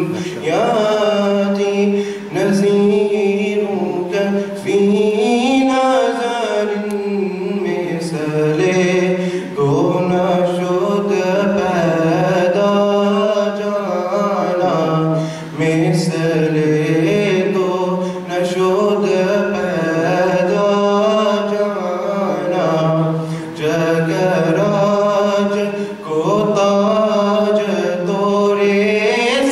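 A man's solo voice chanting Quran recitation in Arabic, long melodic phrases drawn out around a steady pitch, with a short breath pause every few seconds.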